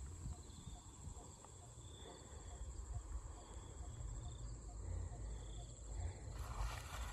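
Crickets and other insects droning steadily in a rice field, with a faint low pip repeating about twice a second and a low rumble of wind on the microphone. A rustle of movement through the grass comes in near the end.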